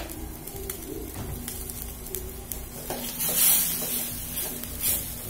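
Chicken and sauce in a wok over a gas burner, stirred with a metal spatula: from about three seconds in, a few short scrapes of the spatula against the wok.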